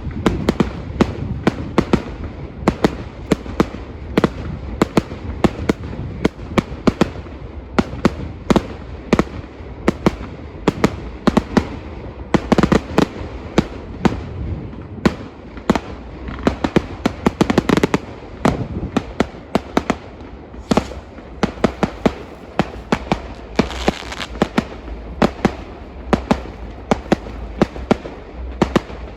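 Fireworks display going off in a dense, continuous barrage of sharp bangs, several a second, with heavier clusters of explosions about halfway through.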